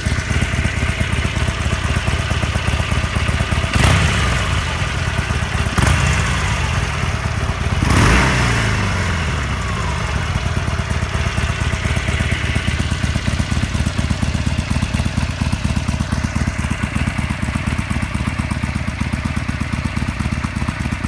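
2015 Harley-Davidson Sportster 72 with its stock exhaust, its 1200 cc air-cooled V-twin idling with an uneven beat. The throttle is blipped three times, about 4, 6 and 8 seconds in, and after the last and longest blip the revs fall back down to idle.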